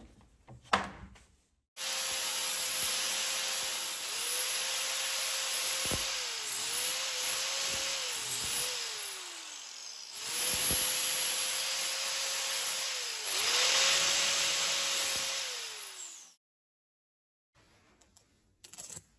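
A sharp knock, then a handheld power tool's motor running for about fourteen seconds, its pitch sagging again and again as it is loaded into the work and easing off briefly about ten seconds in before it stops.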